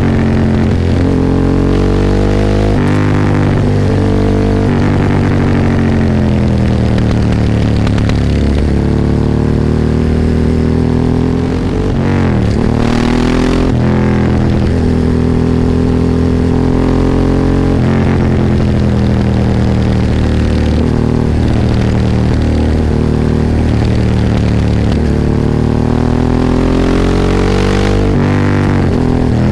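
Ducati 998's L-twin engine heard from onboard, pulling hard through the gears: its pitch climbs, drops at each shift, and climbs again, with a brief lift-off near the middle before it revs up again.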